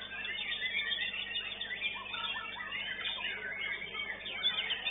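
Many caged songbirds singing at once: a dense tangle of overlapping whistles, chirps and trills.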